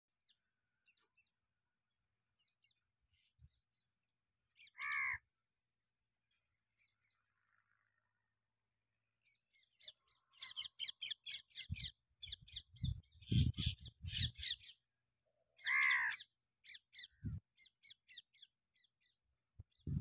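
Birds calling: a single harsh call about five seconds in and another near sixteen seconds, with bursts of fast, high chattering notes from about ten seconds on. A few low thumps come with the chatter.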